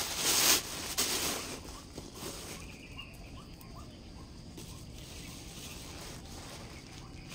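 Rustling from a leather handbag being handled and stuffed with a crumpled red filler, loudest in the first second and a half, then softer.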